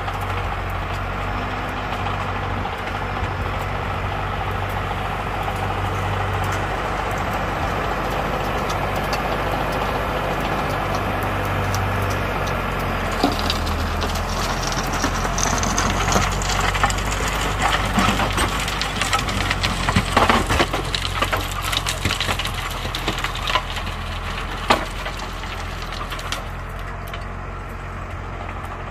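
Tractor diesel engine running steadily while its rear-mounted rotary tiller churns ploughed soil. About halfway through, as the tractor comes close, a dense clatter of sharp cracks and knocks from the tiller working the clods rises over the engine with a faint rising whine, then fades as it moves away.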